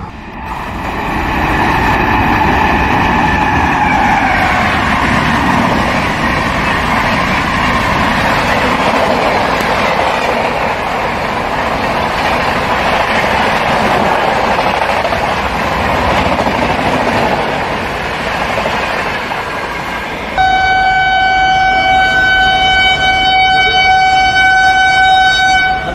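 Passenger train running past at speed, its coaches rattling and rumbling over the rails, with a horn fading and dropping in pitch during the first few seconds. About twenty seconds in, an approaching Indian Railways electric locomotive sounds its horn in one long, steady blast.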